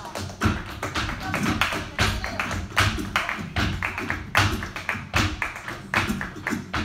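Flamenco dance footwork: the dancer's shoes strike the stage in quick, uneven runs of sharp taps over a flamenco guitar playing a soleá.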